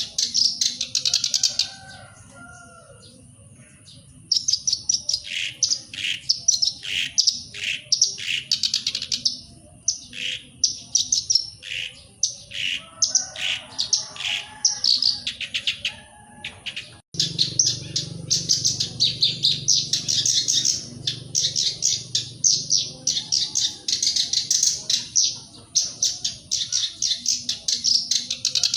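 Black-browed reed warbler singing: fast, scratchy chattering phrases delivered in bursts with short pauses between them. About two-thirds of the way through the song breaks off for an instant and resumes over a low background hum.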